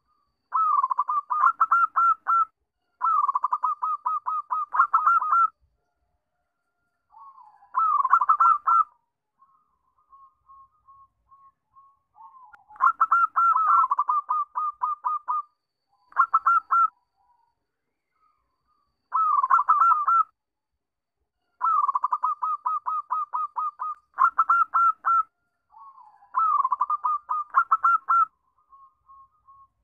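Zebra dove (perkutut) singing: about eight phrases of rapid staccato cooing notes, each phrase one to three seconds long, with soft low coos between some phrases.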